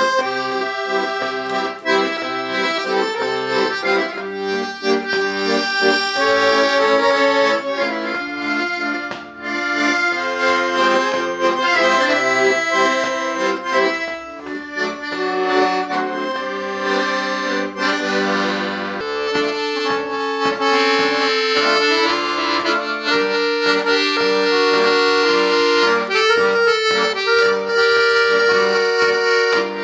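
Accordion playing a tune: a melody over chords, with a pulsing bass in the first half. From about two-thirds of the way through it settles into longer held chords.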